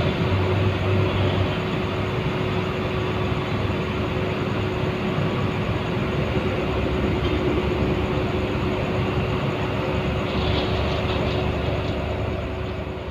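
A steady, continuous rumble with a faint constant hum running through it, of unknown source; the uploader takes it for the roar of sea waves.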